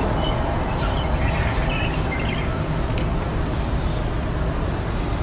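Steady outdoor background rumble with faint bird chirps in the first half, and a few faint clicks as a durian husk is pried apart by hand.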